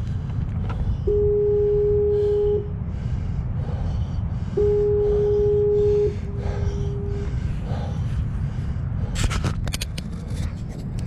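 Minelab CTX 3030 metal detector sounding two steady held tones of about a second and a half each, then a shorter, quieter, slightly lower one, over a steady low rumble. A quick run of sharp clicks and knocks comes near the end.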